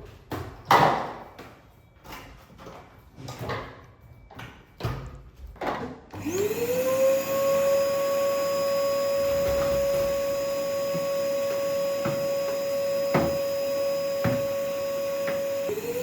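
A few knocks and rustles, then about six seconds in a vacuum cleaner switches on, its motor spinning up into a steady whine with a rushing hiss. It cuts off briefly near the end and spins up again, with a few sharp knocks over the running motor.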